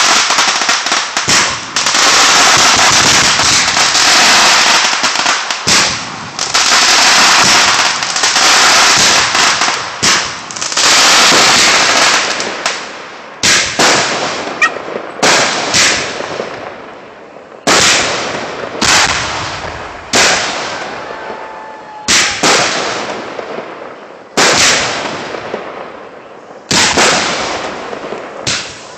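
Fireworks display: a dense barrage of crackling bursts for about the first twelve seconds, then single aerial shells bursting every second or two, each bang trailing off as it fades.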